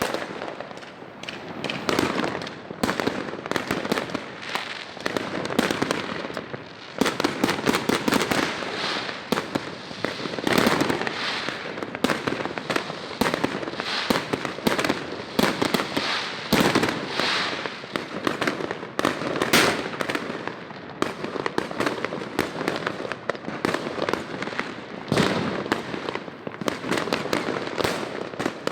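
Fireworks going off: many overlapping bangs and crackling pops in quick succession, with barely a pause and louder clusters every few seconds.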